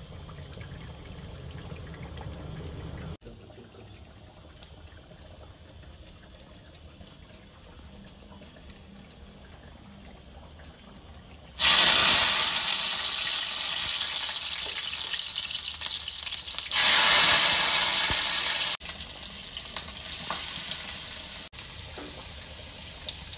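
Water poured into a hot cooking pan: a loud rushing hiss that starts suddenly about halfway through and slowly fades, with quieter kitchen sounds before and after.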